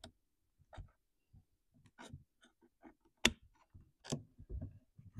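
Scattered clicks and light knocks of small metal and plastic parts as the choke rod and carburetor are worked off a Stihl MS211 chainsaw with pliers, the sharpest tap about three seconds in.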